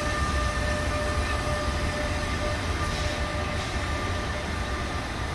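NJ Transit ALP-46A electric locomotive pulling a passenger train along the track: a low rumble with a steady whine of several tones over it, slowly fading as it moves away.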